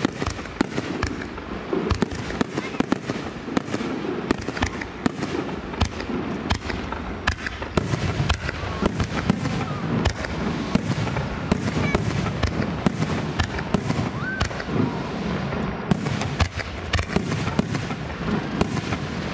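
Aerial fireworks going off in rapid succession: many sharp cracks and bangs, several a second, over a continuous low rumble of booming shells.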